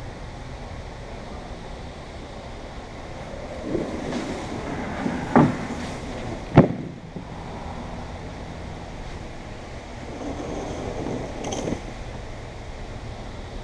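Steady rushing background noise with rustling handling sounds and two sharp knocks about a second apart near the middle, and more handling with a click near the end.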